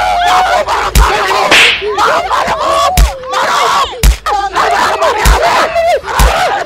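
Slaps and punches landing in a scuffle, about five sharp hits with a deep thump roughly a second apart, over people shouting and yelling.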